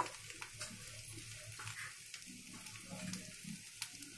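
Boiled potatoes and whole coriander seeds faintly sizzling in hot oil in a kadhai, with scattered light ticks.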